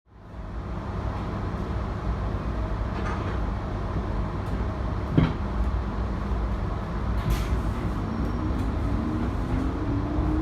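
JR 719 series electric train running, a steady low rumble with one sharp clunk about five seconds in. Near the end a whine rises in pitch as the train picks up speed.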